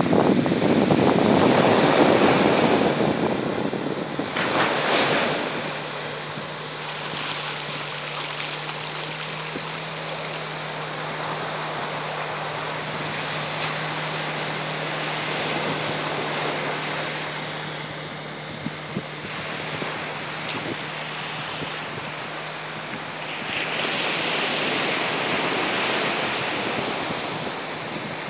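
Surf breaking and wind buffeting the microphone, loudest at the start and again near the end. Through the middle, the steady drone of a small outboard motor pushing an inflatable dinghy.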